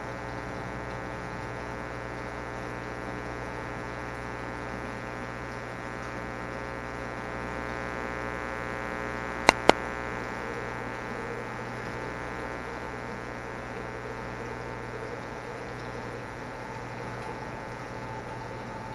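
Steady electrical hum with many overtones, broken about halfway through by two sharp clicks in quick succession.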